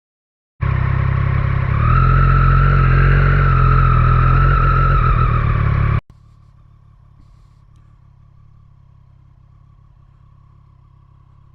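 Triumph Street Triple 765 R's three-cylinder engine held at high revs, loud and steady with a slight rise in pitch, for about five seconds before cutting off suddenly. After that, faint steady engine and road noise.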